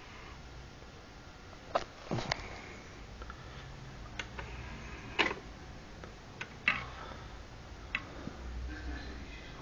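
A series of about seven short, sharp clicks and taps at irregular intervals, the loudest about five seconds in and again near seven seconds, over a faint steady low hum.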